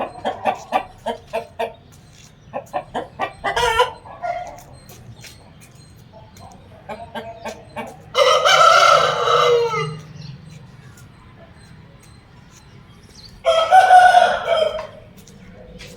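Jawa Aseel chickens clucking in quick runs of short calls, then a rooster crowing twice, once about eight seconds in and again about five seconds later.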